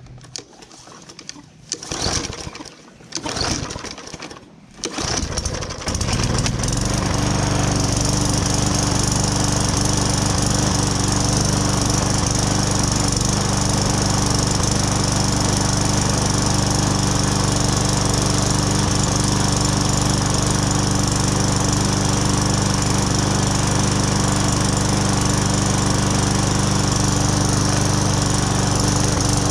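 Briggs & Stratton 450E overhead-valve lawn mower engine being pull-started: a few short bursts of cranking, then it catches about five or six seconds in and runs steadily.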